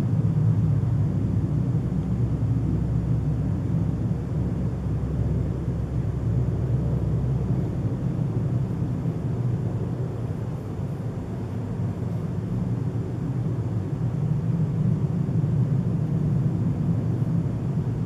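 A steady low rumbling drone heard at night, of unidentified origin. It is deepest and strongest in the bass and slowly swells and eases in loudness without ever stopping.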